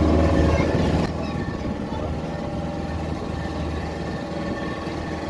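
Motorboat engine running steadily, a little quieter after about a second.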